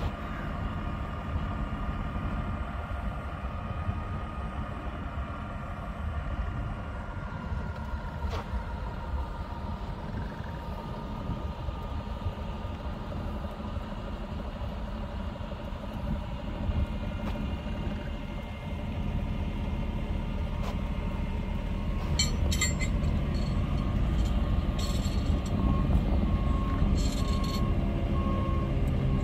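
Fire truck diesel engine running steadily at idle, a low rumble with a steady hum. About three quarters through come a few sharp clicks, and near the end a short run of evenly spaced beeps.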